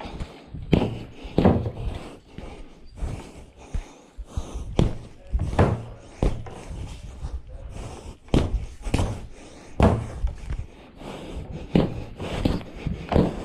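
Boxing gloves striking a free-standing punching bag: about twenty thuds at an uneven pace, often in quick pairs or threes as combinations.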